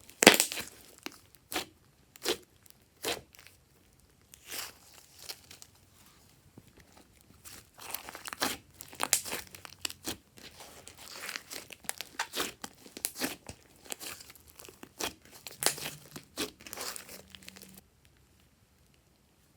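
Glossy slime being squished and stretched by hand, giving irregular sticky pops and crackles. The sounds stop about eighteen seconds in.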